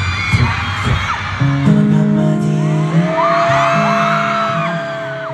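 Concert crowd screaming and cheering with some low thumps during the first second or so. Then the song intro comes in: steady low chords held and changing, with a long higher held note from about halfway, and fans still screaming over it.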